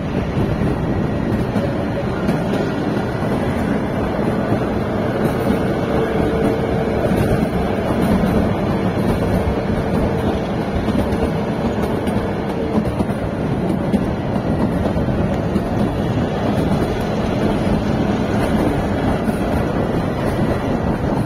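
Shimla toy train on the narrow-gauge Kalka–Shimla line running steadily, heard from aboard: a constant noise of wheels on rails and the moving carriage.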